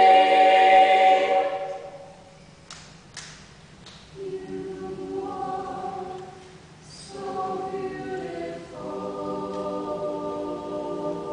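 Mixed-voice a cappella ensemble singing in close harmony. A loud held chord dies away about two seconds in, there is a short pause, and then softer sustained chords come back in.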